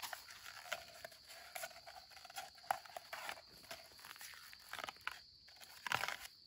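Dry husk sheaths being torn and peeled off a fresh bamboo shoot by hand: irregular crackling rips and snaps.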